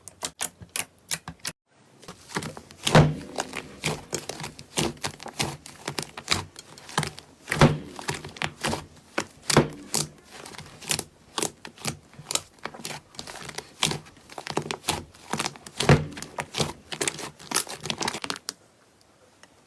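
Slime being squeezed and stretched by hand close to the microphone: a dense run of crackles and sticky pops, with a few louder pops among them. There is a short break about a second and a half in, and the sound stops about a second before the end.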